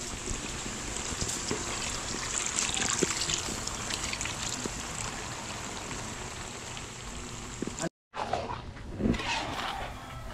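Coconut milk poured from a plastic bowl into a wide metal wok, a steady trickle and splash. About eight seconds in it cuts off abruptly, and a few louder, uneven sounds follow.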